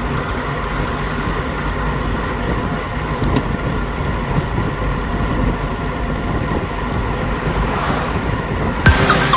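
Steady low rumbling noise with faint steady tones over it; loud electronic music cuts in suddenly near the end.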